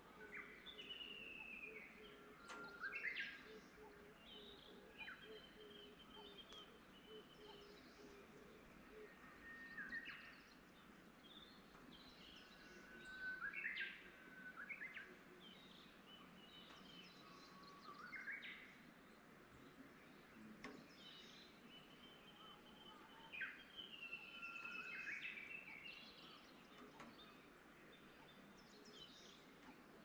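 Wild songbirds singing short whistled phrases that rise and fall in pitch, a new phrase every few seconds, over a faint outdoor hush.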